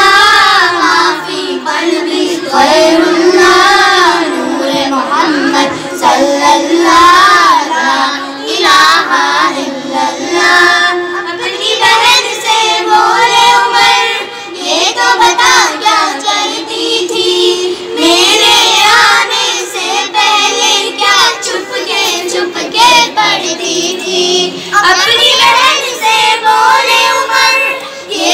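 Several girls singing a naat together into a microphone: unaccompanied devotional chanting in long, wavering melodic lines, with brief breaths between verses.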